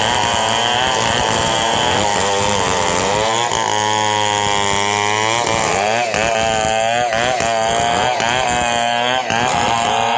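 Several two-stroke Stihl chainsaws running at once while ripping a log lengthwise into planks. Their engine notes overlap and keep wavering and dipping as the saws load up in the cut.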